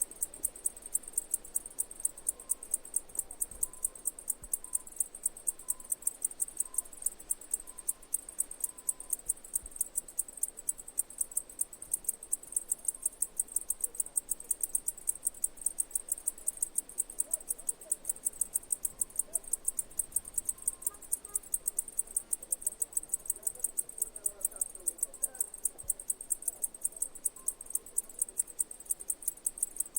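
Cicadas singing: a high, steady pulsing buzz at about four pulses a second.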